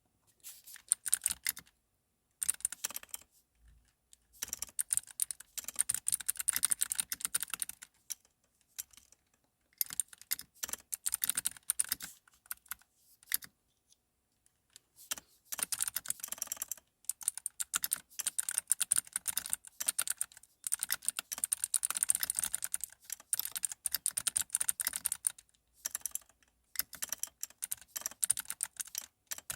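Typing on a computer keyboard: fast runs of key clicks broken by short pauses every few seconds.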